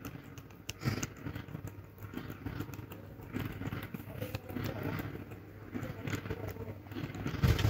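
A cat eating soft wet cat food from a stainless-steel dish close up, with irregular wet licking and chewing clicks over a low steady background rumble.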